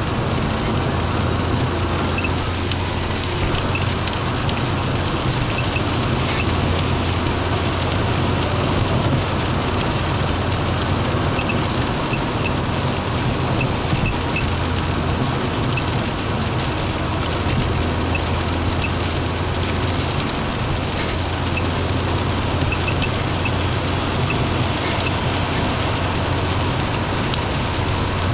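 Steady road noise of a car at expressway speed, heard inside the cabin: tyre and engine noise with a strong low hum.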